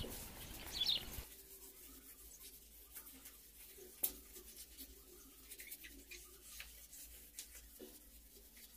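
Faint rubbing and scraping of a hand wiping glazed ceramic wall tiles clean, with scattered light ticks and one sharper click about four seconds in.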